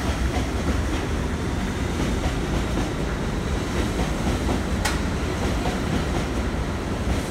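R62A subway train cars rolling past along the platform, a steady, loud rumble of steel wheels on rails. A single sharp click sounds about five seconds in.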